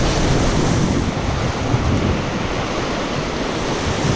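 Whitewater of a river rapid rushing loudly and steadily around a raft, with wind buffeting the microphone.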